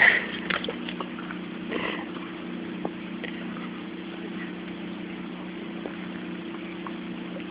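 A steady, low engine hum holding one pitch, with a few faint clicks over it.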